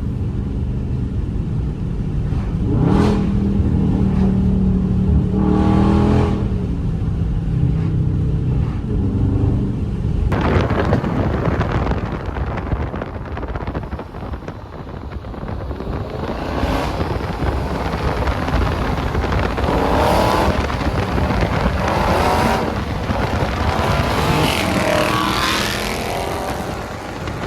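Dodge Scat Pack's 392 Hemi V8 being driven hard, its revs climbing and falling several times as it accelerates. Heavy rushing wind and road noise build up over the second half, with repeated surges.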